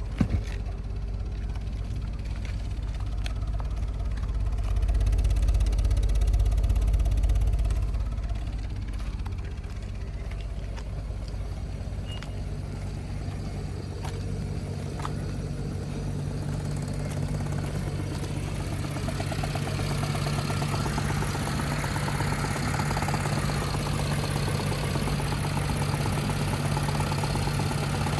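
BMW N53 3.0-litre inline-six engine running with a misfire, the uneven running that sets off the check-engine light. It gets louder for a few seconds about five seconds in, and a steadier, higher hum sets in about halfway through.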